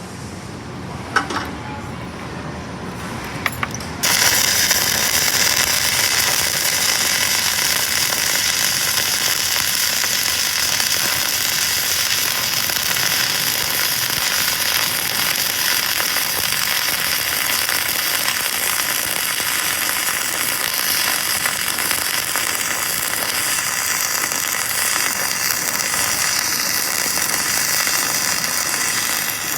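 Self-shielded flux-core arc welding with 5/64 NR-305 Innershield wire: the arc strikes suddenly about four seconds in and then crackles steadily.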